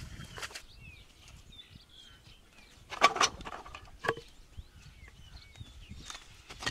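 A long-handled blade chopping into a wooden log: one loud strike about three seconds in and a lighter one about a second later. Small birds chirp in the background.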